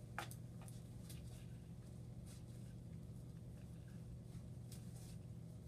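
Faint scattered clicks and light handling of a biopsy needle and syringe by gloved hands, over a steady low hum.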